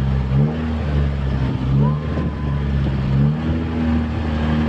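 Engine of a motorized outrigger boat (bangka) running steadily under way, its pitch shifting slightly a couple of times.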